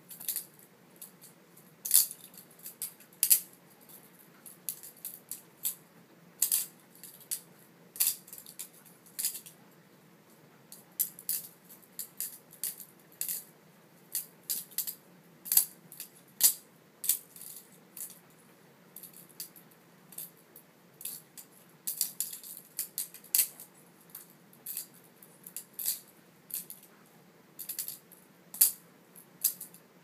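Benchmade 51 balisong being flipped in one hand. Its handles and blade clack and click against each other at irregular intervals, sometimes several clicks a second in quick runs, with short pauses between tricks.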